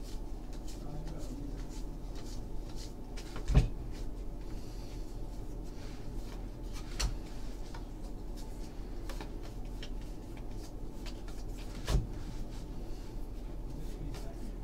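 A stack of baseball trading cards being flipped and slid through the hands, with light card clicks and snaps throughout. There are three louder knocks, about three and a half, seven and twelve seconds in.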